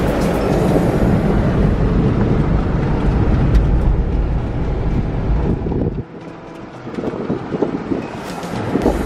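2022 Toyota 4Runner driving over a rough dirt trail: a steady heavy rumble with rattling. About six seconds in the rumble cuts off suddenly, leaving quieter crunching and a few knocks.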